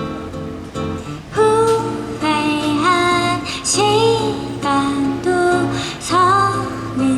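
A woman singing a slow song to plucked guitar. The guitar plays alone for a little over a second, then the voice comes in with long held, sliding notes.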